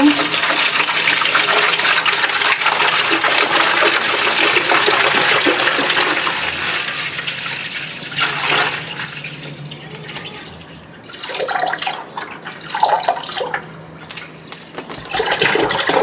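Water pouring from an upended gallon plastic bottle into a humidifier's water tank: a steady splashing stream for about eight seconds, which then weakens into short separate splashes as the bottle runs empty.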